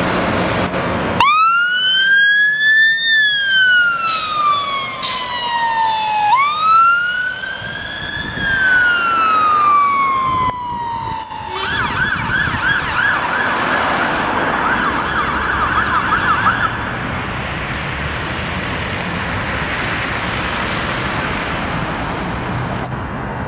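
UK fire engine's electronic siren sounding two slow wails, each rising for about two seconds and falling for about three, then switching to a fast yelp for about five seconds before it stops. Road traffic noise is heard before and after.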